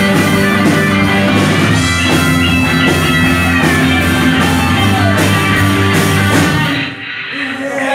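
Live rock band playing: two electric guitars, bass guitar and drum kit. A little under seven seconds in, the drums and bass stop and a held guitar note rings on alone.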